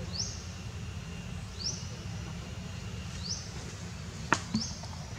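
Outdoor ambience: a short high chirp rising in pitch, repeated evenly about every second and a half, over a steady low rumble, with one sharp click about four seconds in.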